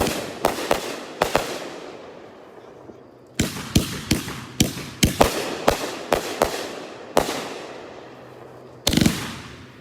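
Consumer fireworks cake (Good Brothers Firefly) firing, its shells breaking overhead with sharp cracks that trail off. A run of cracks opens, then a lull, then a quick volley of about eight cracks, one more, and a loud burst near the end.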